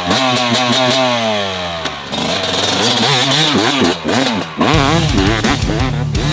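Two-stroke motocross bike engine being ridden: the engine pitch falls away over the first couple of seconds, then it revs up and down in several quick blips, and about two-thirds through it settles into a lower, steadier drone.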